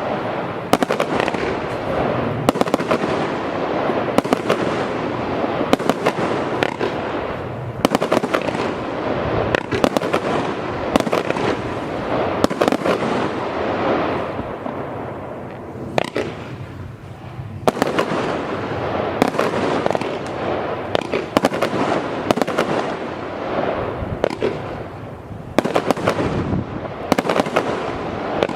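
A 100-shot, 25 mm consumer firework cake firing in rapid succession: a steady volley of launch thumps and mid-air bursts with dense crackle between them, easing briefly about halfway through before picking up again.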